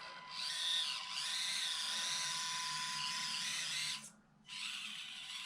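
Axial SCX24 micro RC crawler's small electric motor and gear drivetrain whining steadily as it drives. It cuts out for a moment about four seconds in, then resumes more quietly.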